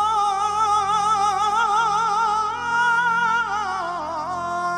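A male voice singing a long, held phrase of Egyptian religious inshad with wide, wavering vibrato, over an ensemble with ney flute and violin; the melody slides downward near the end.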